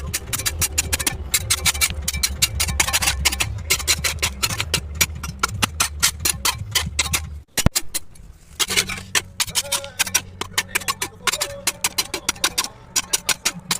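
Background music with a fast, clicking beat over a steady bass line, briefly cutting out about halfway through before resuming.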